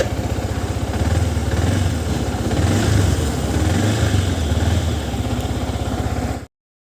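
Yamaha R15 V3 motorcycle's single-cylinder engine idling with an even, low pulsing beat, cutting off suddenly about six and a half seconds in.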